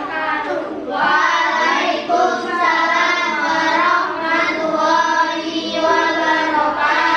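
A group of children singing together in unison, in a run of long held notes that change pitch about once a second.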